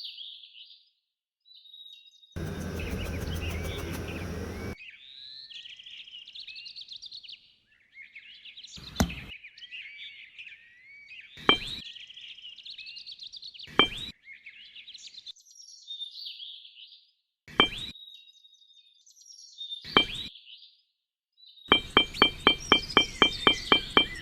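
Small birds chirping and twittering, with a short burst of noise about two seconds in. Single sharp knocks every two to three seconds, then a quick run of about a dozen knocks near the end.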